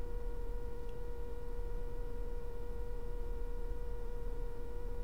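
Steady electrical hum in the studio audio: one mid-pitched tone with fainter higher overtones over a low rumble, unchanging throughout.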